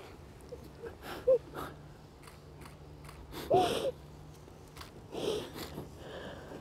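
Crying at close range: sniffles, shaky breaths and a few brief voiced sobs, the strongest about three and a half seconds in.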